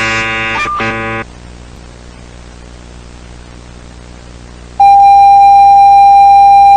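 Electronic emergency-alert tones. A chord of steady beeping tones lasts about a second, breaking briefly partway through, then gives way to a faint hiss. About five seconds in, a loud, steady, single-pitched attention tone starts and holds.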